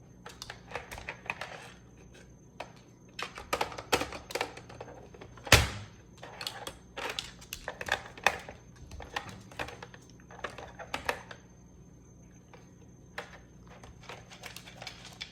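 A dog chewing on a toy: irregular clicks and crunches of teeth on the toy, with one sharp, loud click about five and a half seconds in and a short lull near the end.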